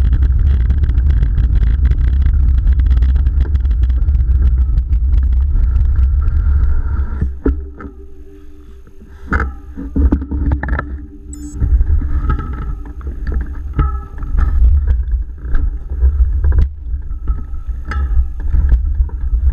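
Motorcycle running at low speed with heavy wind rumble on the microphone, then the engine is shut off about seven seconds in. After that there are gusts of wind on the microphone and scattered short knocks.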